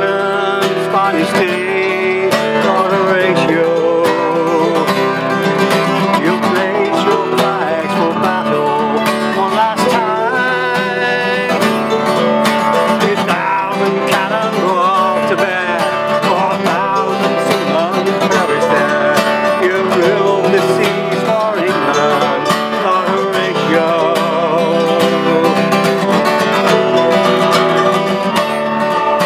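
Live acoustic folk band playing a sea shanty tune: a strummed acoustic guitar and a mandolin, with a tin whistle played near the end.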